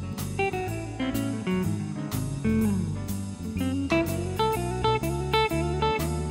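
Background music: a guitar-led, blues-style tune over a bass line, with drum hits keeping a steady beat.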